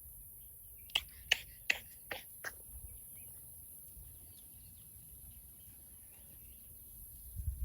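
A quick run of five sharp clicks about a third of a second apart, each a little fainter than the last. Faint bird chirps sound on and off behind them.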